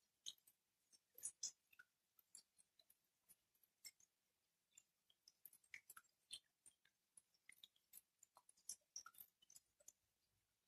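Faint, irregular ticks and taps of raindrops dripping onto leaves and ground close by, several a second, with no steady rain hiss beneath them.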